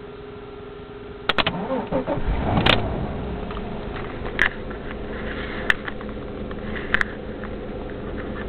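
Alfa Romeo GTV's 3.0-litre 24-valve V6 cranked on the starter about a second in, catching about a second later and settling into a steady idle. A few sharp clicks sound over the idle.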